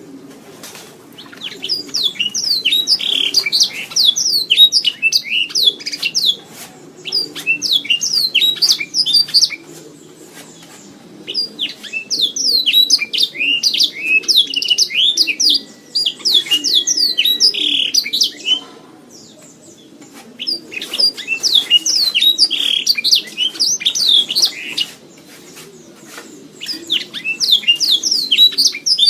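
Domestic canary singing: bouts of fast, sweeping trilled notes lasting a few seconds each, broken by short pauses, five bouts in all, over a faint low background hum.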